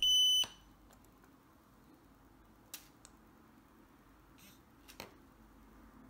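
Pandora Multibrand 605 alarm tester giving one high electronic beep that cuts off about half a second in, the tester marking that it has picked up a key fob's signal. After it, near quiet with a few faint clicks.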